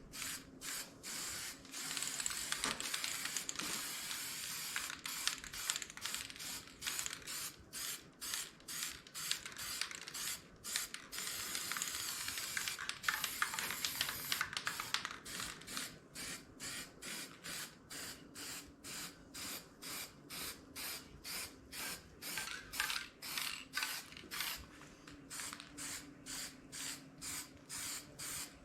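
Paint being sprayed in hissing bursts, fairly continuous at first, then in short, evenly spaced passes about two a second through the second half.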